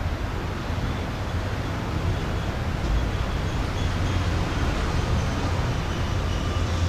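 Steady outdoor background noise: a low rumble with a hiss over it, and a few faint high chirps.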